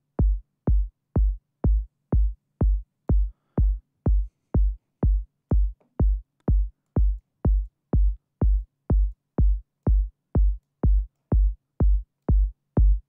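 Synthesized electronic kick drum from the Sonic Academy KICK plugin, looping four-on-the-floor at about two hits a second, each hit a short click over a deep sub thump. Its pitch envelope and amp envelope are being adjusted to make it subbier and tune it toward G.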